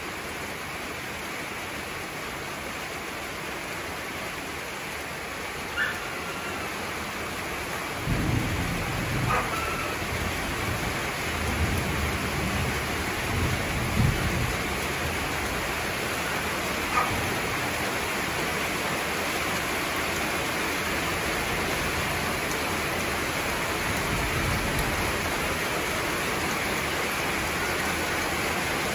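Heavy rain falling steadily. About eight seconds in a roll of thunder rumbles for several seconds, with a weaker rumble later on. A dog barks briefly a few times.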